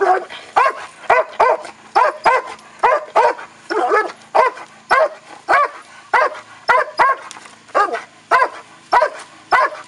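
Female Dobermann barking at the helper in protection training: a rapid, even run of loud barks, about two a second.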